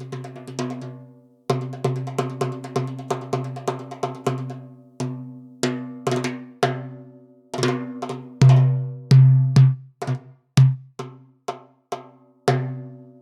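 Sampled Middle Eastern hand drums from the Native Instruments Discovery Series Middle East library playing a rhythmic pattern of quick strokes with a deep pitched tone. After a brief pause about a second and a half in, the pattern runs on, and near the end it turns to a few louder, more spaced strokes.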